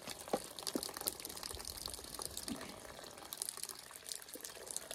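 Faint water running and spattering from a makeshift shower's hose, which leaks at a burst joint, with a few small knocks.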